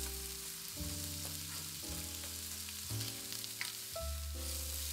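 Shredded carrot and onion sizzling in hot oil in a wok as they are stir-fried with a spatula, with background music playing held notes over the sizzle.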